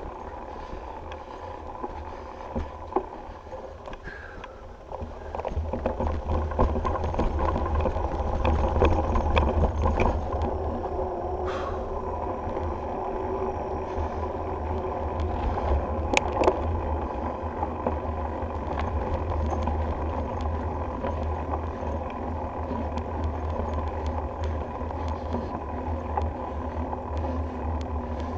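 Bicycle ride heard from a GoPro on the bike: wind rumbling on the microphone over tyre noise and the rattle and knocks of the bike over bumps, getting louder about five seconds in.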